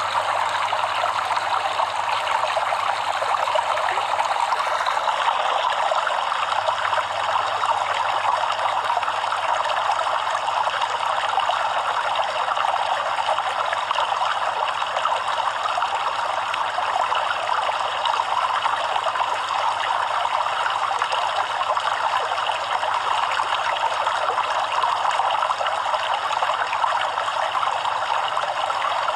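A stream of running water flowing and babbling steadily, an even rushing sound with no breaks.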